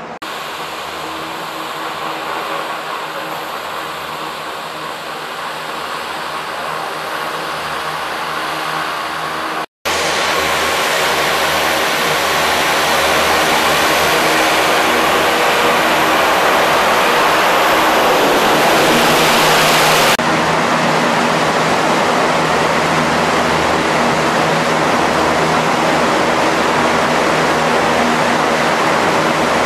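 U.S. Navy LCAC hovercraft running at speed: its gas turbines, lift fans and shrouded propellers make a loud, steady rushing noise with spray, over a steady low hum of engine tones. The sound drops out briefly near ten seconds and shifts suddenly near twenty seconds as shots change.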